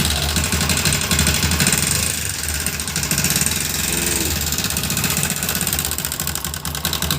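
Bajaj Discover's single-cylinder four-stroke motorcycle engine idling with a fast, even metallic ticking clatter from the top end. The mechanic blames seized bearings in the two rocker arms, worn timing-chain guide pads and a worn camshaft.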